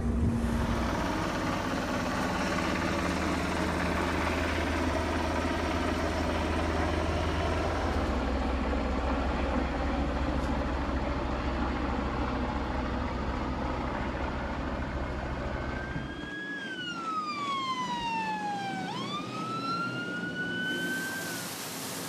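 Boat engines running steadily. About sixteen seconds in, a siren sounds one slow sweep, falling in pitch and then rising again.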